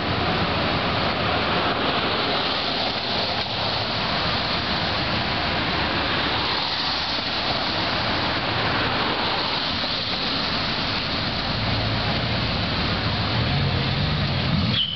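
Steady rushing street noise of car engines and traffic, with a low engine note that rises in pitch over the last few seconds.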